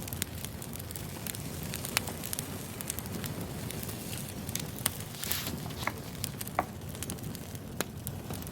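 Wood fire crackling: a steady low rumble of burning logs with irregular sharp pops and snaps, and a short hiss about five seconds in.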